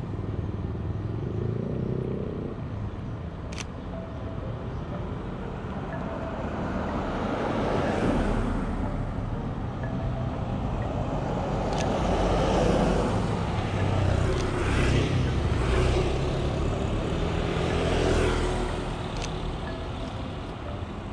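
Road traffic: several motor vehicles, motorcycles among them, passing one after another, each swelling up and fading away over a steady outdoor background.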